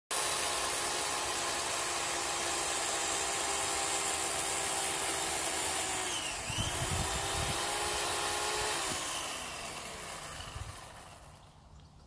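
Chainsaw engine running at high revs with a steady pitch; the pitch dips briefly and recovers about six and a half seconds in, then falls away and the sound fades out over the last few seconds.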